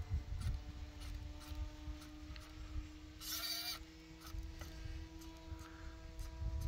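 Low wind rumble on the microphone with the faint steady whine of the Ranger 2000 RC plane's distant electric motor, its pitch creeping slightly upward. A short buzzing burst about three seconds in, while the antenna tracker swings to follow the plane.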